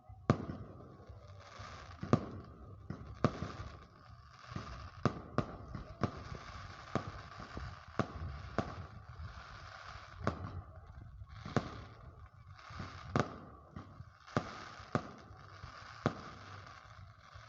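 Fireworks going off in a steady barrage: about twenty sharp bangs at uneven intervals, roughly one a second, with crackling and hissing between them.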